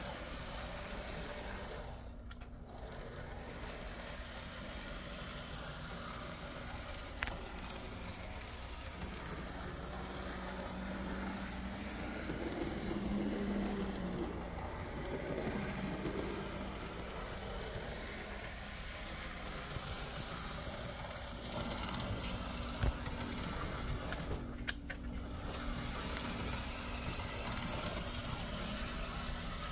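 Märklin Z-scale model steam locomotive running on its track: the steady whir of its tiny electric motor and gears with the wheels rolling on the rails, swelling a little about halfway through, with a few light clicks.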